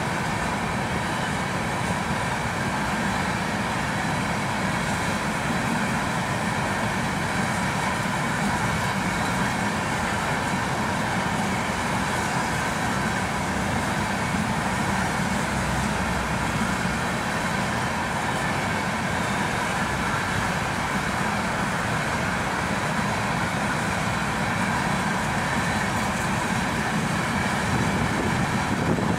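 BNSF freight train of hopper cars rolling past a grade crossing: a steady rumble and clatter of steel wheels on the rails, without a break.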